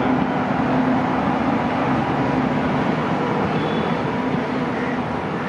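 WAP-7 electric locomotive passing close by, a steady hum over the rumble of its wheels on the rails, followed by passenger coaches rolling past.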